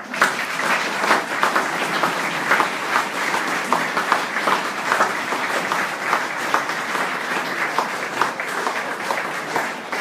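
Audience applauding, breaking out suddenly and holding steady.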